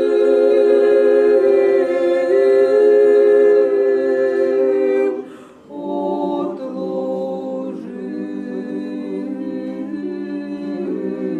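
Unaccompanied choir singing Orthodox liturgical chant in held chords, with a short break about five seconds in before the singing resumes.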